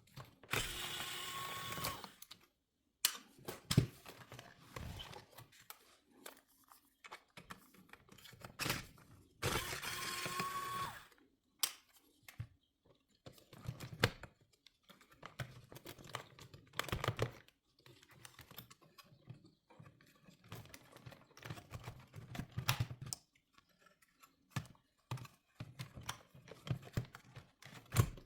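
Irregular clicks, taps and knocks of plastic and metal parts of a car head unit being handled and pried apart. Twice, a steady noise lasts about a second and a half.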